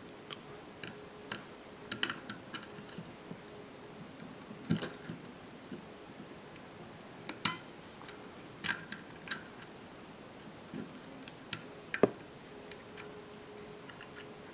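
Scattered small clicks and taps of pistol parts and a punch being handled during reassembly of an H&K P30L frame, a few sharper clicks standing out among light handling noise.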